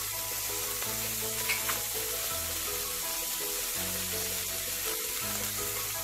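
Diced tomatoes and onion-spice masala sizzling in hot oil in a steel pan, stirred with a wooden spatula, with a couple of light taps about a second and a half in. Background music with long held notes plays under the sizzle.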